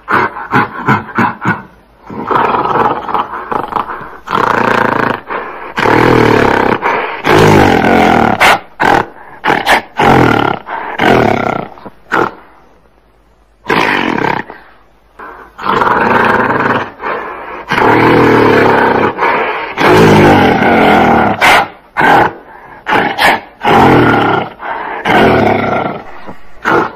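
Gorilla roaring: long loud roars of a few seconds each, broken by clusters of short, sharp calls at the start and near the end, with a quiet gap of about two seconds around the middle.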